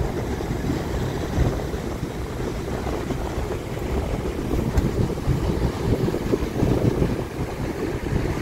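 Wind buffeting the microphone, a fluctuating low rumble over the wash of ocean surf breaking on a sandy beach.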